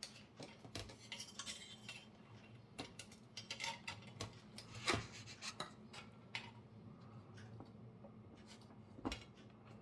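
Faint scattered clicks and light metallic clinks and rubbing from a circuit board and its sheet-metal housing being handled, with a sharper click about five seconds in and another near nine seconds.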